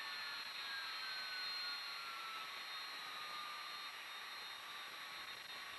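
McDonnell Douglas KC-10 Extender's three turbofan engines running at taxi power: a steady jet hiss and whine, with a thin high tone slowly dropping in pitch.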